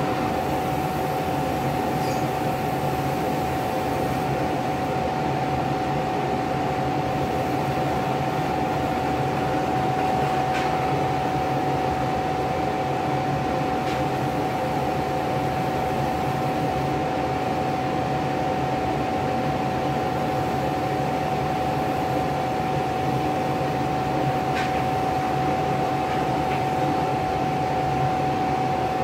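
A machine running steadily with a fan-like hum and a constant single-pitched whine, and a few faint ticks.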